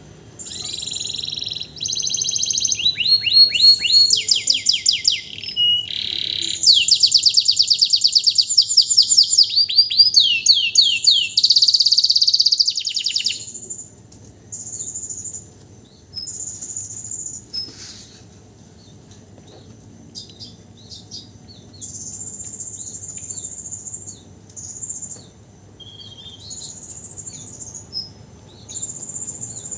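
Domestic canary singing in full song after its molt: fast trills and rolling runs of repeated notes, some sweeping up or down, for about the first thirteen seconds, then quieter short chirps and phrases.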